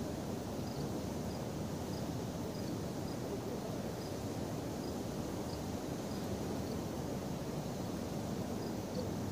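Steady low outdoor background noise with faint, short, high chirps scattered through it, about one or two a second at irregular spacing.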